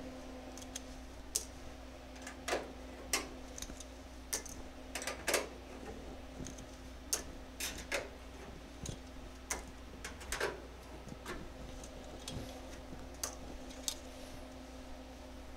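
Cleco pliers and spring clecos clicking as the temporary fasteners are squeezed and pulled from a freshly stitch-welded sheet-metal patch panel: sharp, irregular clicks roughly a second apart, over a steady low hum.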